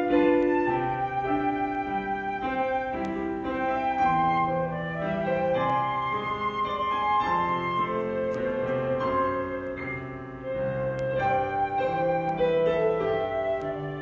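Flute and piano playing together: the flute carries a melody of held notes over piano chords.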